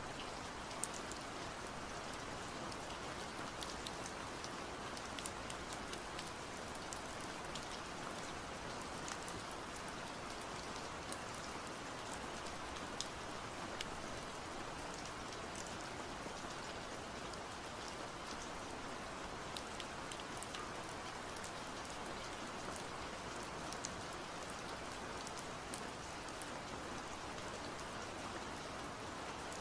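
A steady, even hiss with small scattered ticks and crackles throughout, with no pauses or build-ups.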